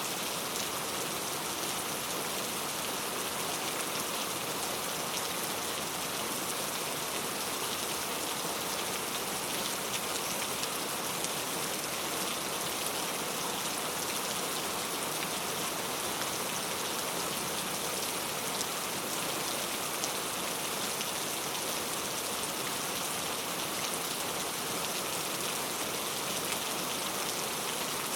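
Steady heavy rain falling, an even hiss of countless drops pattering on a surface.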